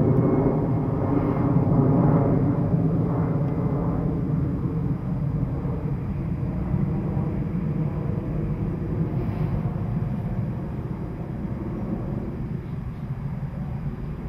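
Airbus A319 twin-jet airliner passing overhead at about 4,800 ft in a climb, a low rumble that fades as it flies away, falling from about 66 to 52 dBA. The higher part of the noise dies off after a few seconds, leaving mostly the deep rumble.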